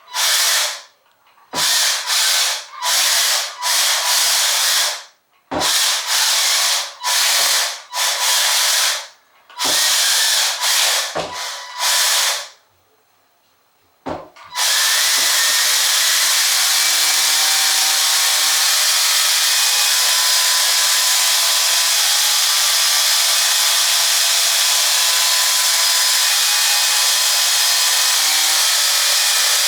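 Small electric drive motor and gearbox of an RC model battleship whirring in about a dozen short on-off bursts, then, after a short pause, running steadily without a break.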